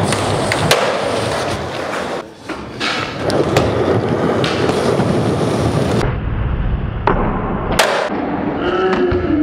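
Skateboard wheels rolling on a smooth concrete floor, with several sharp clacks of the board striking the ground; the loudest clack comes near the end.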